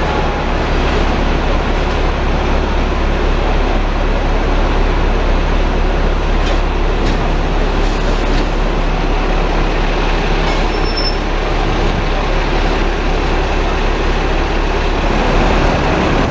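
Steady rumble of a Hong Kong double-decker tram running along its street rails, heard from aboard, with double-decker buses and other street traffic running alongside.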